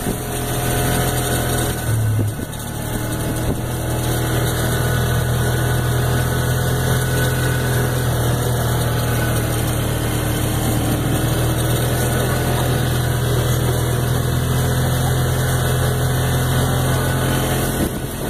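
Off-road vehicle engine running steadily while driving over sandy tracks, with a brief change in engine note and a dip in level about two seconds in.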